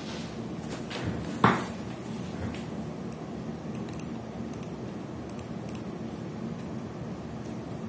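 Steady low hum and hiss, with a single sharp knock about one and a half seconds in and a few faint, light clicks later on.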